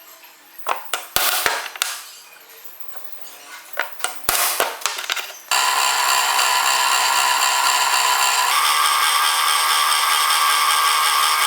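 Metal parts clank and knock a few times, then an angle grinder starts and runs with a steady, loud, high-pitched whine for about six seconds, shifting slightly partway through before stopping.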